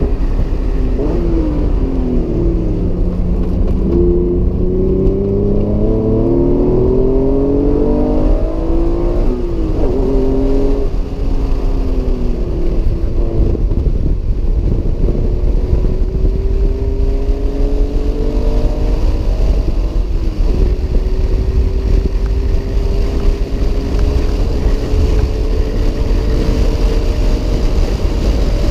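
Acura NSX's mid-mounted V6 engine heard from inside the cabin at speed on track. Its pitch swings up and down quickly with shifts in the first ten seconds or so, then climbs steadily on two long pulls with a gear change between them, over a heavy low rumble of road and wind noise.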